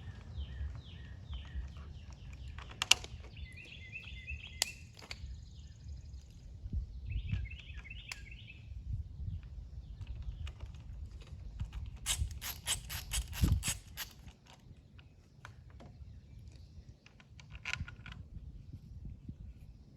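Scattered clicks and knocks of small parts and tools being handled while motorcycle handlebar switch housings are fitted, with a quick run of about a dozen clicks a little past halfway. Birds chirp in the background.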